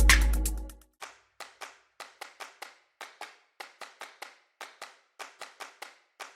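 Electronic music fading out within the first second, then a run of short, sharp clicks or taps, about three a second and unevenly spaced.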